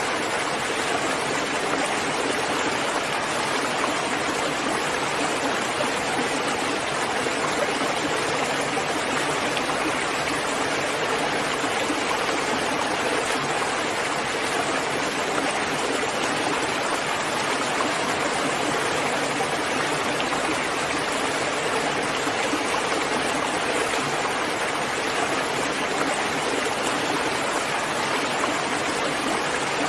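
Steady, even rain, falling continuously with no distinct drops or thunder standing out.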